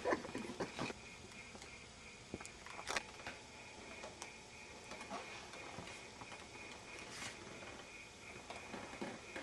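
Faint rustling and handling noises with a few soft clicks, over a faint steady high tone.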